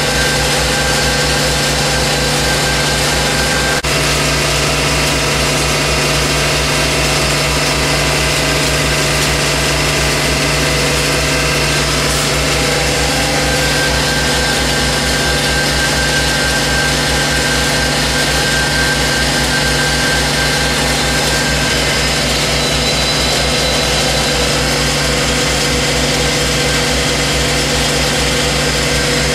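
Grout pump running steadily under power, a loud even machine drone with a fast regular low throb from its pumping strokes.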